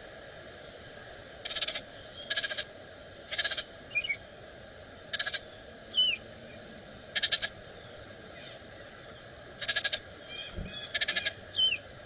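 Baltimore orioles giving short dry chattering rattles, about seven of them spread through the few seconds, with a few brief slurred whistled notes in between: the scolding chatter of orioles competing at a feeder.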